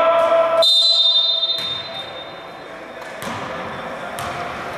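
Basketball bouncing on a gym floor, about three thuds after a high steady tone that fades over a couple of seconds.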